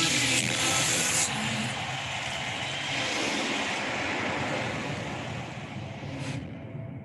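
Crowd cheering and applauding on a film soundtrack, loudest at first and then fading away, gone about six and a half seconds in.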